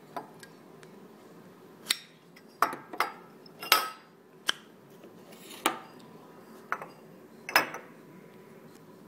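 Metal clicks and clinks from Zippo-style lighters being handled and taken apart, the steel inserts pulled from their chrome cases: about nine sharp, irregularly spaced knocks with a short metallic ring.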